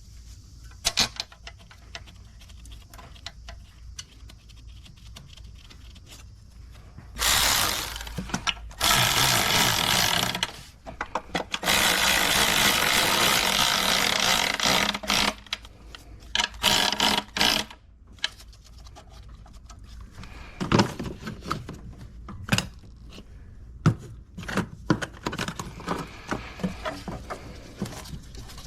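A power tool runs in several bursts, a few seconds each, running in the intake manifold bolts. Between the runs come clicks and knocks of tools and parts being handled.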